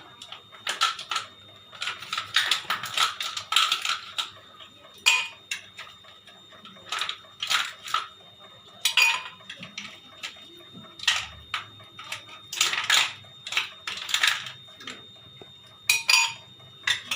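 Ice cubes clinking and knocking as they are dropped into a blender jar, a long run of sharp irregular clicks, some in quick clusters.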